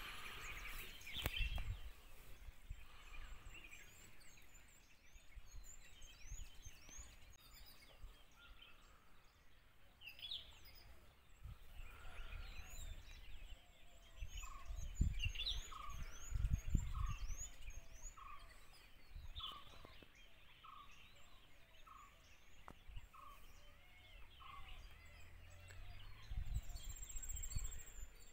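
Forest ambience of birds chirping, with a regular series of short calls, about one a second, through the middle. A few low rumbles come and go.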